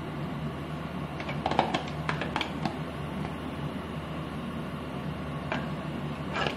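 A metal spoon clinking against a tub and plate while thick yogurt sauce is spooned out: a quick run of clinks a little over a second in and a couple more near the end, over a steady room hum.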